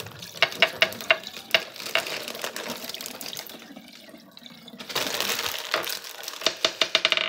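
Tap water running into a bathroom sink while a wet plastic bag is handled, with sharp crinkles and clicks. The water swells louder about five seconds in, and a quick string of clicks comes near the end.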